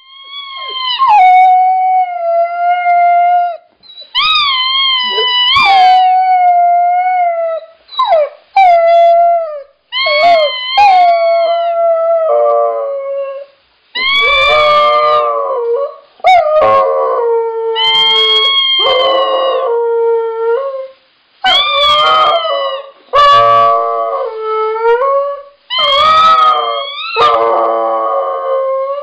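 A husky howling: a run of long, pitched howls, each lasting a second to a few seconds and bending up and down in pitch, with short breaks between them.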